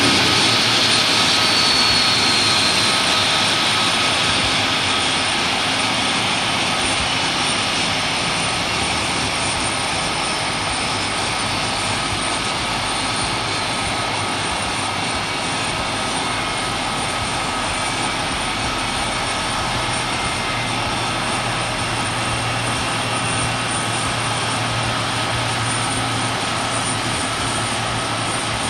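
Jet airliner engines running with a steady, loud roar that slowly fades, with a high whine falling in pitch over the first few seconds.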